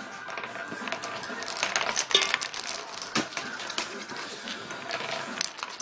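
Wooden nickels spinning and wobbling on a wooden tabletop, with an irregular run of clicks and clatters as the discs rattle against the wood.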